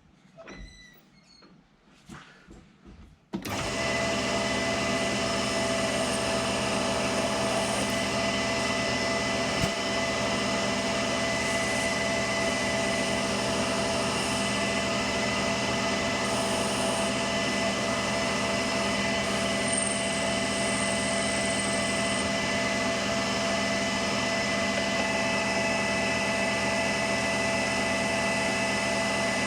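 A few faint clicks, then about three seconds in a metal lathe (an AL960B) starts up and runs steadily with a constant gear whine, turning a steel hydraulic fitting while the thread relief is cut.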